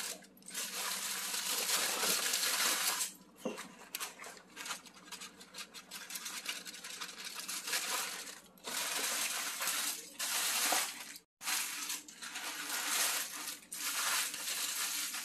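Aluminium foil and paper wrapping crinkling and rustling as they are handled, in several crackly bursts of a few seconds each.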